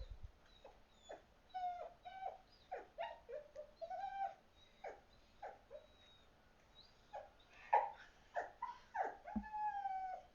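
Dog whining in a long run of short high whimpers, many falling in pitch, with one longer drawn-out whine near the end: distress cries from separation anxiety when her owner has left.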